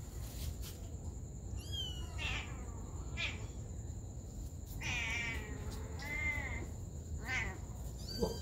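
Young kitten mewing repeatedly: a string of about six or seven short, high-pitched mews, with a longer one about five seconds in.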